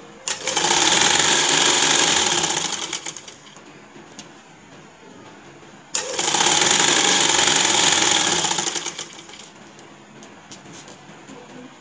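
Sewing machine stitching a folded hem in net fabric, in two runs of about three seconds each with a fast, even needle clatter. Each run starts abruptly and tails off as the machine slows to a stop.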